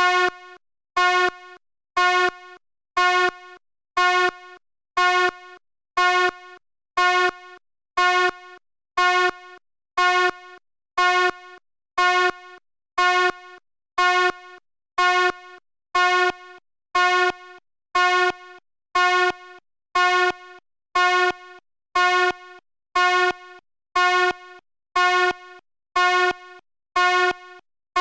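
Fire alarm horn sounding in a steady pulse, about one buzzy blast a second. Each blast starts loud, drops to a quieter tail, then stops for a short gap before the next.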